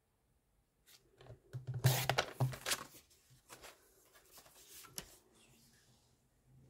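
Paper trimmer's blade carriage drawn along its rail, slicing through a sheet of cardstock in about a second, with a scraping, tearing sound. A few light clicks and paper rustles follow as the cut piece is handled.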